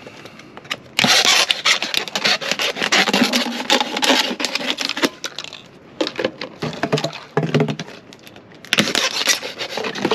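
Knife sawing through a plastic bottle, the thin plastic crackling and scraping in dense runs of clicks that stop briefly twice.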